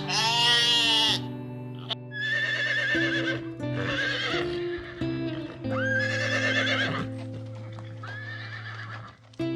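A farm animal calling about five times, each call a wavering cry about a second long, over background music that holds steady chords.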